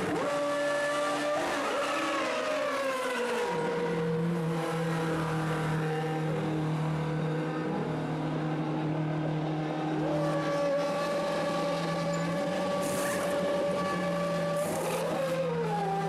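Formula Renault 3.5 racing cars' V8 engines running in the pit lane: the pitch glides down as a car passes early on, a note holds steady for several seconds, and another falling glide comes near the end. Two short hissing bursts sound near the end.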